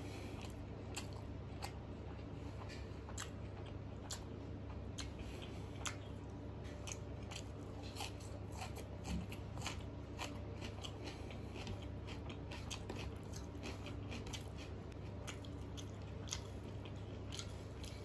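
Close-miked chewing of rice and mutter paneer eaten by hand, with many short sharp mouth clicks and smacks. A steady low hum runs underneath.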